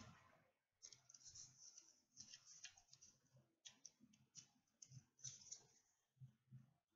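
Near silence with faint, scattered small clicks and light rustles, about a dozen spread irregularly over the seconds.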